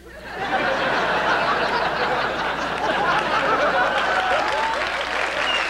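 Audience laughing and applauding together, building up within the first half-second and then holding steady.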